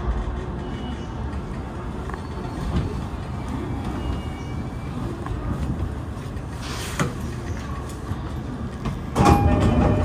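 Commuter train braking to a stop, heard from inside the carriage: a steady low running rumble with a sharp click about seven seconds in. Near the end comes a sudden, louder rush of noise carrying a few steady tones.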